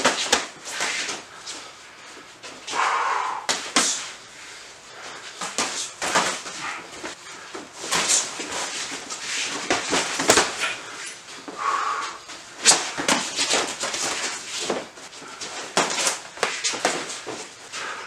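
Sparring with boxing gloves and shin guards: irregular sharp slaps and thuds of punches and kicks landing, with feet stepping and shuffling on foam floor mats.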